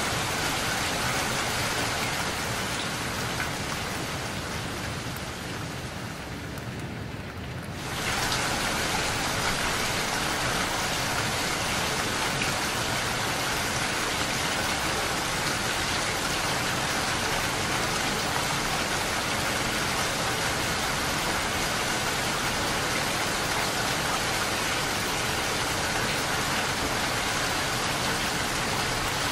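Steady rain pattering on a window pane, a dense even hiss of drops. About four seconds in it grows duller and quieter, then comes back full and suddenly about eight seconds in.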